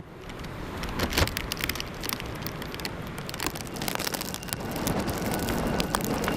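Typhoon rainstorm: a dense rush of heavy rain and wind, with many sharp knocks and spatters of rain hitting close by.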